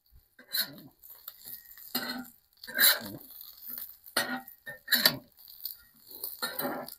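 Metal spatula scraping and clacking against a cast iron griddle plate while hash browns are flipped: an uneven series of short scrapes and taps, about six louder ones.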